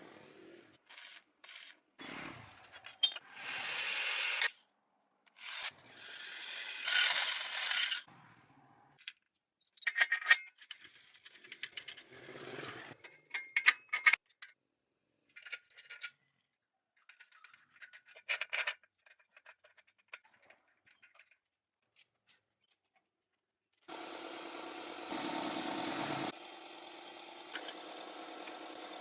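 A string of short workshop sounds from hand work on metal parts: scraping and rubbing, clicks and clinks, with brief bursts of tool noise separated by silent gaps. In the last few seconds a steady machine hum comes in, with a louder burst near the end.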